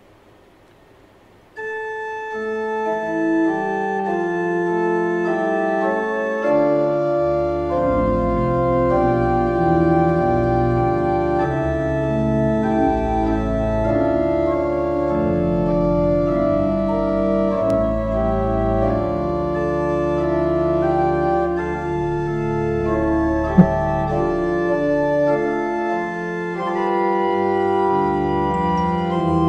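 Pipe organ playing a hymn in sustained chords, starting suddenly about a second and a half in, with deep pedal bass notes joining a few seconds later. A single sharp tap sounds about two-thirds of the way through.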